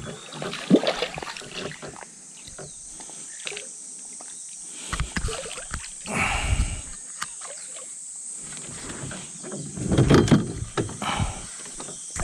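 Water sloshing and splashing with knocks and handling noises as a hooked black bass is fought and brought in beside a float boat. There is a sharp knock near the start and bursts of splashing around the middle and near the end.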